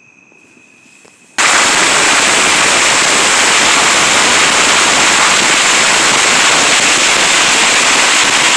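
A long string of firecrackers going off in one continuous, very loud crackle that starts abruptly about a second and a half in and lasts about seven seconds before dying away.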